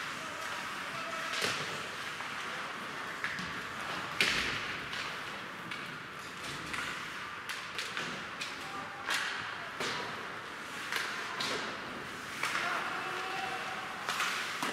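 Ice hockey play: skate blades scraping on the ice and scattered sharp clacks and knocks of sticks, puck and boards, the loudest about four seconds in, with faint shouts from players.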